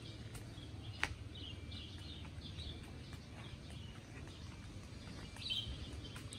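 Birds chirping in short repeated calls over a low steady rumble, with one sharp click about a second in.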